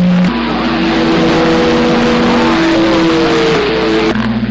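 AM CB radio on channel 27 (27.025 MHz) in the Icom IC-7300 receiver's audio: steady static hiss with several steady whistling tones from overlapping carriers, heterodynes of more than one station keyed on the channel at once. The tones change pitch about a third of a second in and again near the end, and one slides down slightly partway through.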